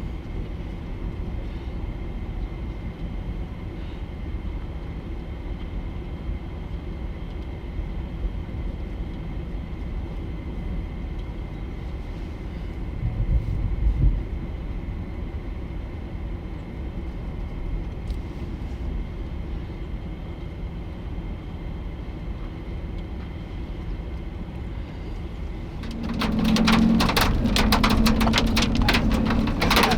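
Steady low road drone inside a moving vehicle's cabin. About four seconds before the end, hail starts clattering densely on the vehicle's roof and windows, much louder than the drone.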